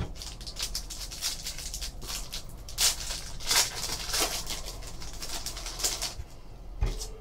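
Foil wrapper of a hockey card pack crinkling and tearing as it is ripped open by hand, with a run of rustles and a few louder rips around the middle. A soft knock comes near the end.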